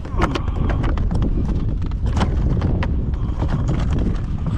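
Wind rumbling on the microphone, with a string of irregular hollow knocks and clicks.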